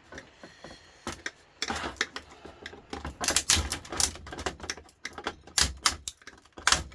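Irregular sharp clicks, taps and knocks of hand tools working on the plastic and metal parts of a George Foreman grill as it is prised apart. Few in the first second or so, then dense and busy.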